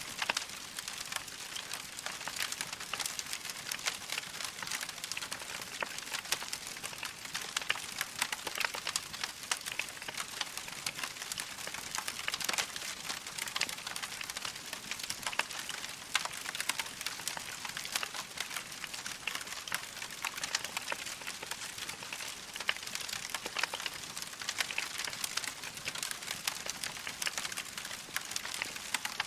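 Wood fire in a fireplace crackling steadily, with many small pops and snaps over a soft hiss.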